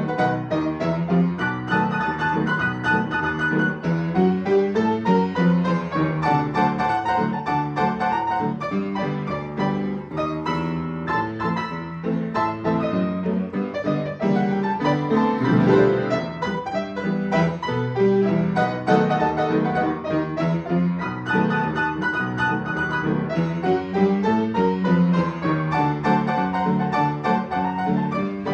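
Solo piano playing a lively piece of many quick notes.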